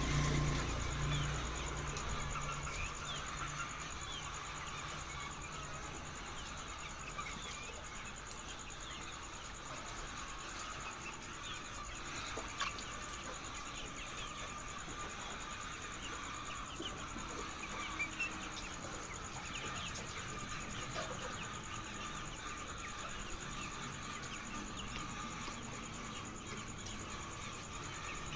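A flock of chickens clucking and chirping together, a dense chatter of many short calls, with a low hum fading out in the first couple of seconds.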